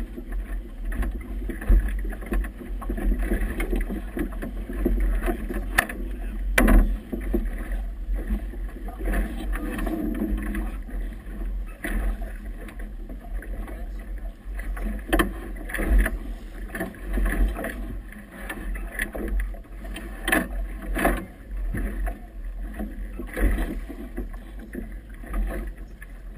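Strong wind buffeting the microphone in a steady low rumble, with choppy water slapping against the boat's hull in irregular knocks and splashes.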